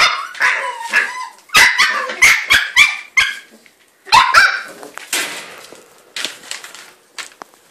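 Terrier puppy barking: a rapid run of high, yappy barks, several a second, for about four and a half seconds, then tailing off into a few fainter yips.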